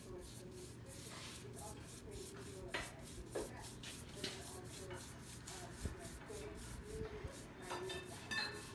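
Foam brush rubbing boiled linseed oil into a charred cedar board in repeated short back-and-forth strokes, faint, with a couple of light knocks about three seconds in.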